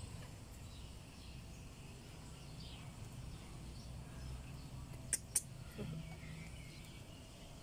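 Quiet background of a steady low hum with a few faint high chirps, and two sharp clicks about a third of a second apart about five seconds in.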